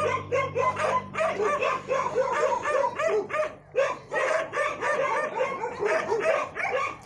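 Several dogs barking and yelping together in rapid, overlapping barks, with a brief lull about halfway through.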